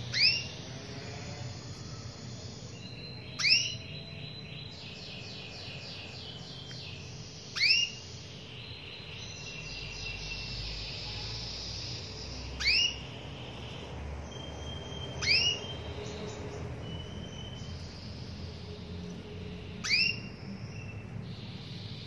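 Female canary calling for a male: a short, sharply rising call note given six times, a few seconds apart. Fainter high twittering runs in between.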